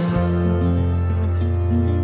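Acoustic pop song in an instrumental passage: plucked acoustic guitar over a steady low bass note, with no singing.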